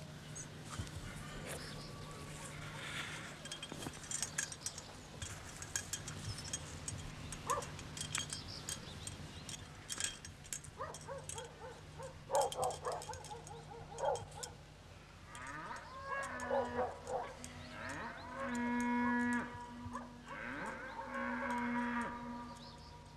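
Cattle mooing several times, the longest and loudest call a few seconds before the end, over a steady low hum and scattered faint clicks.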